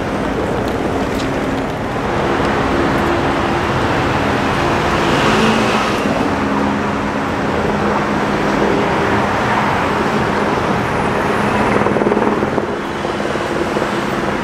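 Steady city road traffic: cars and taxis running past, a continuous mix of engine hum and tyre noise.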